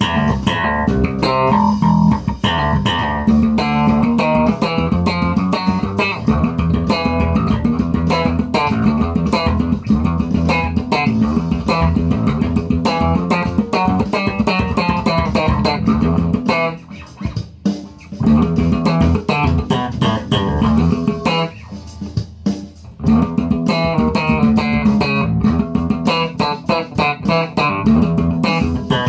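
Electric bass played slap-and-pop style in a funk improvisation: quick runs of thumb-slapped low notes and popped higher strings. The playing thins out and goes quieter twice past the middle, then picks up again.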